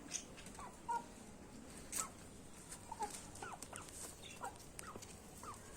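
Birds giving short, scattered chirping calls, several sliding down in pitch, with a few sharp clicks about one and two seconds in.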